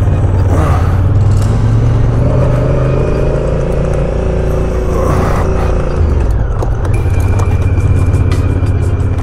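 Large adventure motorcycle's engine running at low revs while riding a rough dirt forest track, with two brief rushes of noise, about a second in and about five seconds in.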